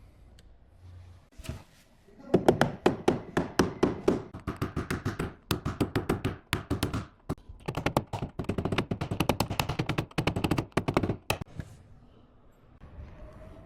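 Rapid metallic tapping of a paintless dent repair tap-down tool struck with a small hammer on a car body panel, about five light taps a second in several runs with short pauses: knocking down the high spots around a door ding.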